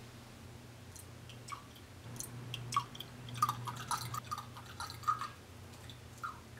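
Rum poured in a thin stream from a small glass into a champagne flute: a run of irregular splashing plinks and drips, busiest in the middle.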